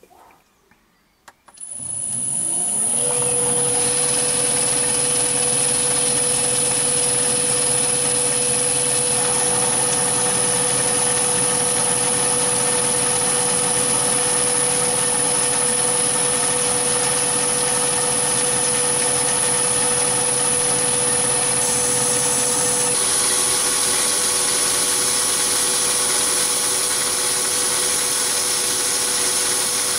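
Myford ML7 lathe switched on about a second and a half in, its motor and spindle running up to speed with a rising tone, then running steadily with a hum and a high whine above it. The sound changes about 23 seconds in.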